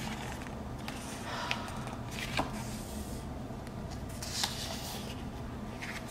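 Paper pages of a photo book being handled: rustling and a few sharp paper clicks, with a page beginning to turn near the end. A steady low background hum runs underneath.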